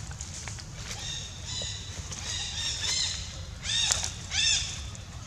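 Young long-tailed macaque squealing: a string of short high calls that builds to two loud arching cries about two thirds of the way in, over a low steady rumble.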